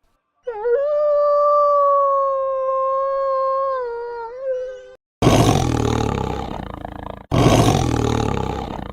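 An animal's long, steady, high-pitched call lasting about four seconds, followed by two loud, rough roars of about two seconds each.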